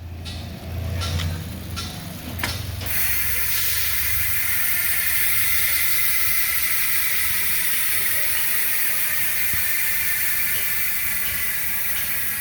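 Mountain-bike rear freehub spinning freely, its pawls clicking against the ratchet so fast that they merge into a loud, steady, high-pitched buzz. A few separate clicks come first, and the full buzz sets in about three seconds in.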